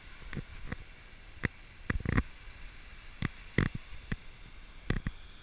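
Irregular sharp taps and knocks on a waterproof camera housing, about a dozen in a few seconds, over a muffled low rumble.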